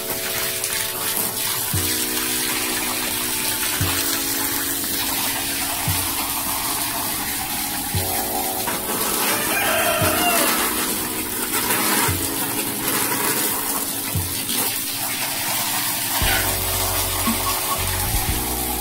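Water running steadily, under background music with sustained chords and a soft regular beat; a chicken calls briefly about ten seconds in.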